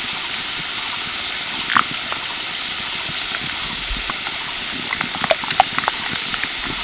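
Steel spoon stirring a wet paste of yoghurt and ground spices in a ceramic bowl, with a few light clicks of the spoon against the bowl, most of them in the second half. Under it, a steady sizzling hiss of potatoes frying in oil in a kadai.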